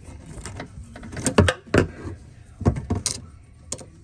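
Irregular knocks and clinks of metal parts and tools being handled while tightening a kitchen faucet's mounting hardware, a handful of separate sharp strikes, loudest in the middle.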